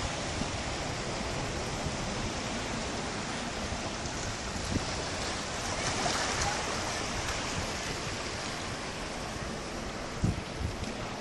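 Calm sea water lapping and washing at the shoreline, a steady wash of noise, with wind rumble on the microphone. A couple of brief low thumps about ten seconds in.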